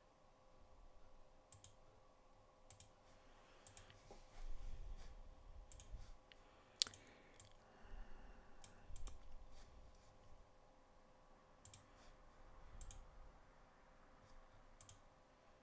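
Computer mouse clicking: about a dozen single clicks spread apart, over a faint steady hum and a few low rumbles.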